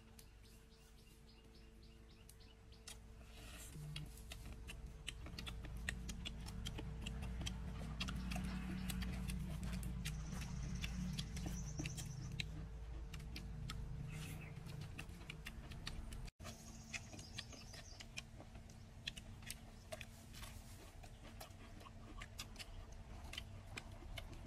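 Close eating sounds: a dense run of small clicks and smacks from chewing and from fingers pulling apart grilled pig head meat, with a low rumble swelling through the middle.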